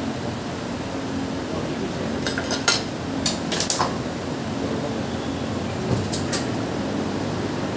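Dishes and pots clinking and clattering in a few short clusters, about two, three and six seconds in, over a steady background hum.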